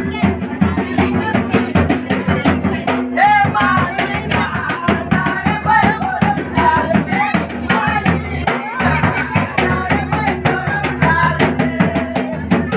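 Folk dance music: a quick, steady drumbeat with singing over it, the singing clearest through the middle.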